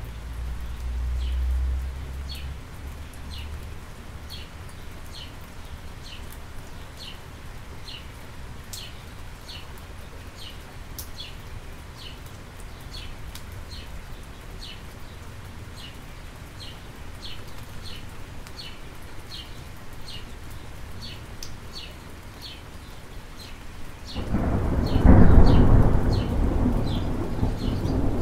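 Steady rain falling on wet pavement during a thunderstorm. A low thunder rumble dies away in the first two seconds, and a loud roll of thunder breaks about 24 seconds in and rumbles on. A bird chirps over and over, about one and a half times a second, through the rain.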